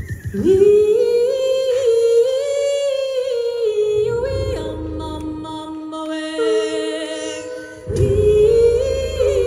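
A cappella vocal group singing with no instruments: a lead voice holds long, gliding notes over backing voices. A low bass voice comes in about four seconds in. The voices drop out briefly just before eight seconds, then swell back in.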